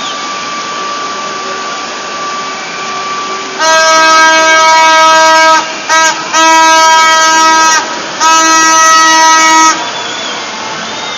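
A loud horn blown close by in blasts on one steady pitch: a long blast, a quick short toot, then two more blasts.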